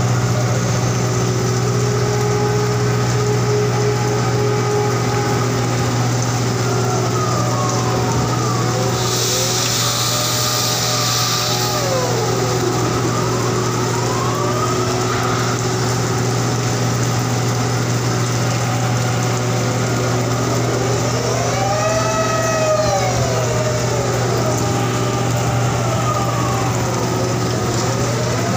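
Floating crane machinery running with a steady low drone. Whining tones rise and fall in pitch several times as the crane works, and a short hiss comes about nine seconds in.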